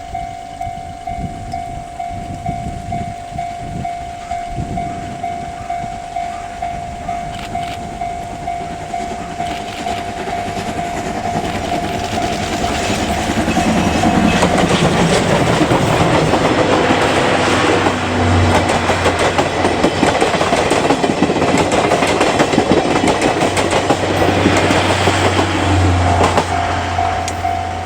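Steam locomotive C57 180 with its train of 12-series coaches approaches with rhythmic exhaust chuffs that grow steadily louder. It then passes close by with heavy clatter from the wheels over the rail joints. A level-crossing warning bell rings throughout and stands out again near the end.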